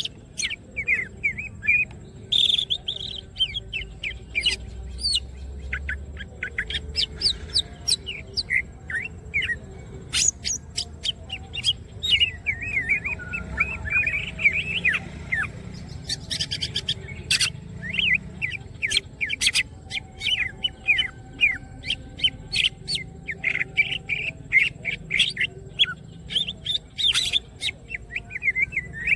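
Green leafbird (cucak ijo) singing continuously in an energetic, non-stop 'gacor' song: a rapid run of short, varied chirps and whistled notes sliding up and down in pitch.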